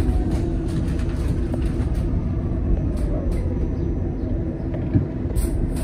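Inside a BYD Alexander Dennis Enviro200EV electric bus on the move: a steady low road and tyre rumble under a faint steady electric-drive hum, with light rattles from the body and one short knock about five seconds in.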